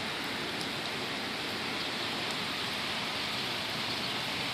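Steady rainfall: an even hiss of rain with no breaks.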